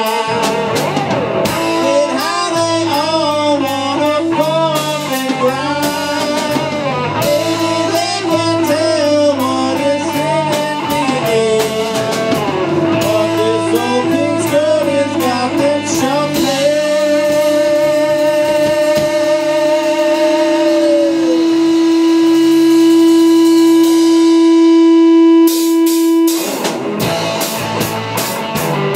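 Live rock band with electric guitar, bass guitar and drum kit playing an instrumental passage. The guitar plays a lead line of bent, wavering notes, then holds one long note that swells for over ten seconds before it cuts off. The drums and cymbals crash back in near the end.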